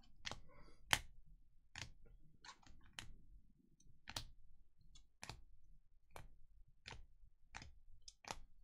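Trading cards being handled and set down one after another, making a series of sharp, separate clicks, roughly one to two a second.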